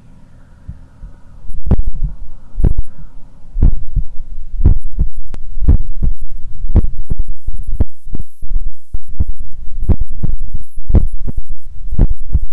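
Heartbeat heard through a stethoscope on the heart's apex, with the body lying on the left side: loud low thumps about once a second. The beats are faint at first and come in strong after about a second and a half, with a little high scratchy noise over them.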